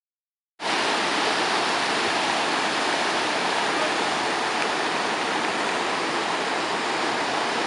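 Rushing whitewater of a river standing wave: a steady, even rush of water that cuts in abruptly about half a second in.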